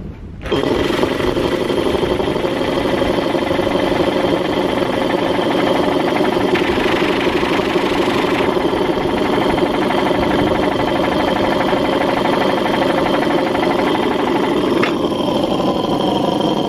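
Homemade tankless air compressor, an electric motor belt-driving a twin-cylinder compressor pump, starting about half a second in and running steadily with a fast, even pumping clatter. Around seven seconds in a brief rush of hissing air rises over it.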